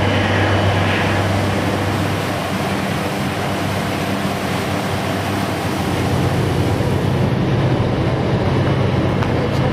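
Harbor power station's Caterpillar diesel generator sets running with a steady, loud low hum under a wash of noise; the hum's pitch steps up about six seconds in. The station runs around the clock, so the harbor is never quiet.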